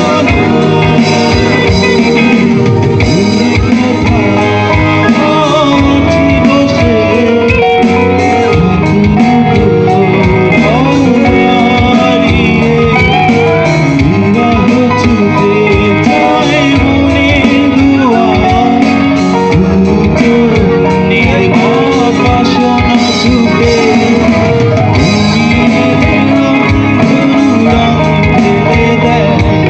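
Live band playing loudly: a male singer sings into a microphone over electric guitars and a keyboard, with a steady beat.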